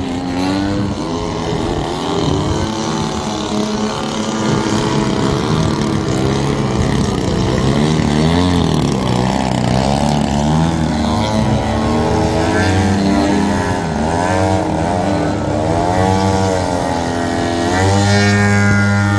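Engine of a giant-scale radio-controlled aerobatic plane, its pitch rising and falling again and again as the plane makes passes. Near the end it settles into a steady note as the plane hangs nose-up in a hover.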